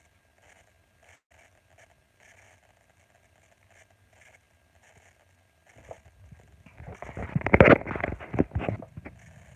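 Faint, patchy crackle, then about six seconds in a loud burst of rustling and scratching made of many quick clicks, lasting about three seconds before it stops.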